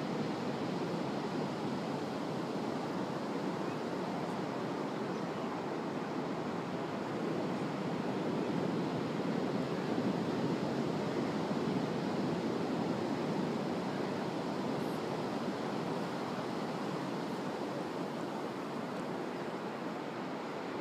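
Ocean surf breaking on the beach: a steady wash of waves that swells slightly about halfway through.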